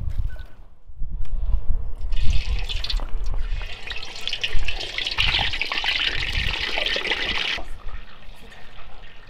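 Whole raw chicken sizzling as it is laid in a hot cast-iron pan, a dense steady hiss that starts abruptly about two seconds in and cuts off near the end. A few soft knocks come before it.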